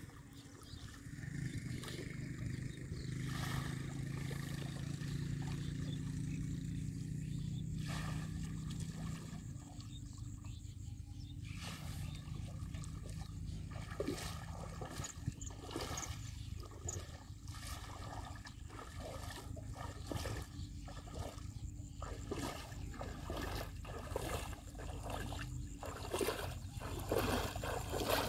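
Shallow river water splashing and dripping as a person wades and hauls in a cast net, in irregular splashes that get busier in the second half. A low steady hum runs underneath for the first several seconds.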